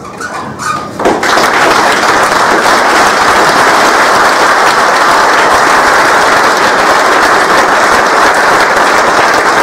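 A hall audience breaks into applause about a second in, then keeps clapping steadily and loudly.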